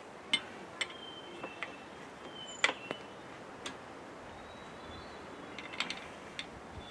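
Irregular sharp clicks and knocks, about eight, the loudest a little under three seconds in, with faint short high tones in between.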